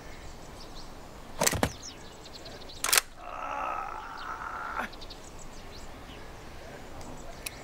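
Metallic clicks of a scoped bolt-action rifle being worked and loaded by hand: a quick double click about a second and a half in, a sharp click near three seconds, and lighter clicks later as a cartridge goes in. Between the clicks a man groans.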